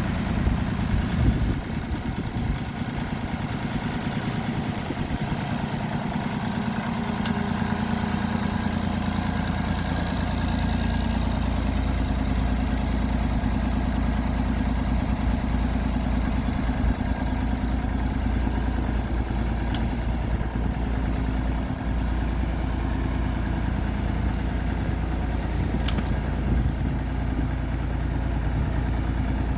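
An engine running steadily, with a heavier low rumble from about eight seconds in.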